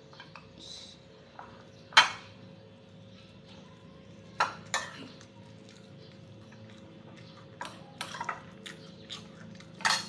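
Several sharp clinks of tableware against ceramic plates and bowls as food is served onto a plate of rice, the loudest about two seconds in. A faint steady hum runs underneath.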